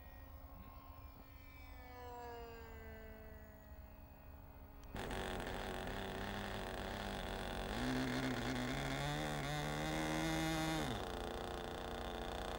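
Model airplane engines buzzing. At first a faint engine note falls steadily in pitch as a model plane passes. After a sudden cut about five seconds in, the engine noise is louder, with a stronger droning note from about eight to eleven seconds that rises slightly and then stops.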